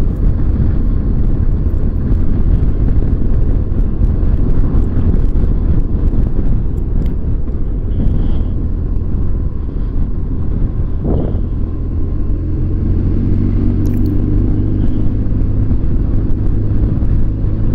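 Motorcycle ridden at steady road speed, heard from the rider's seat: a continuous low rumble of engine and wind. The engine's note stands out more clearly as a steady tone from about twelve seconds in.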